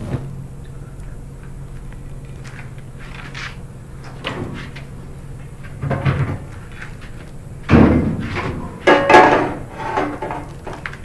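A low steady hum, then heavy bangs on a wooden door: a first pair about six seconds in, and the loudest ones near eight and nine seconds in.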